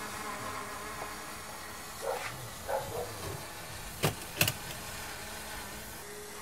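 DJI Mavic Pro quadcopter flying, its propellers giving a steady buzzing hum. Two sharp clicks come in quick succession about four seconds in.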